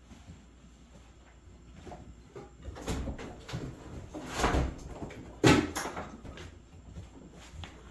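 A series of knocks and thuds of things being handled, like a door or cupboard being worked, the loudest about five and a half seconds in.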